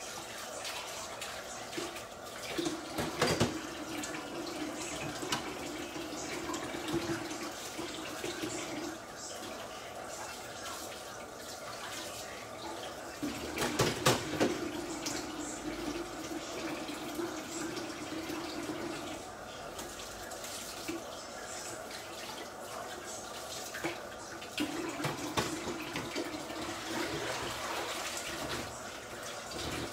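Kitchen tap running in three spells of several seconds each, over a steady hiss, with a couple of sharp knocks as the first two spells begin.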